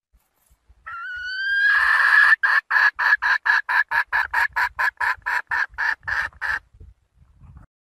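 Red junglefowl hen calling to a rooster: one drawn-out rising note, then a quick run of short clucks at about four a second that stops abruptly.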